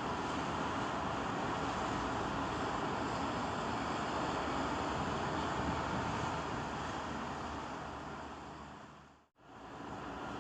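Steady running of heavy machinery. It fades away to a moment of silence about nine seconds in, then returns.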